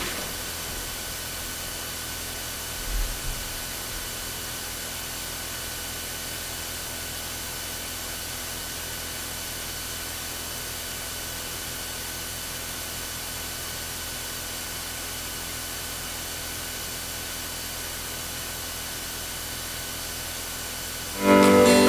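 Steady hiss of room tone with a few faint steady tones in it, and a soft low bump about three seconds in. Near the end an acoustic guitar starts strumming.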